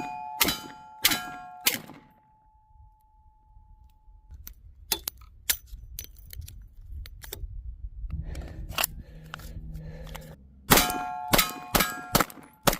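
Handgun shots, each followed by the ringing of a struck steel target: three shots in the first two seconds, one ring carrying on for a couple of seconds, then small clicks and handling sounds, then a quick string of shots with rings from about eleven seconds in.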